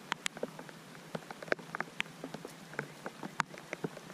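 Rain falling, with individual drops ticking sharply at irregular intervals over a soft steady patter.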